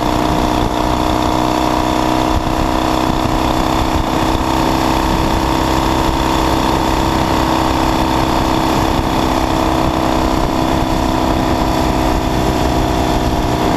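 1969 Triumph T120's 650 cc parallel-twin engine running steadily at cruising speed, its pitch holding level with no gear changes.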